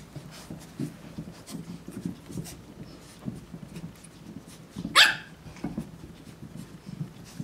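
Maltese and shih-tzu puppies play-fighting with an American Bully: a string of short low growls and grunts, with one loud, sharp yelp rising in pitch about five seconds in.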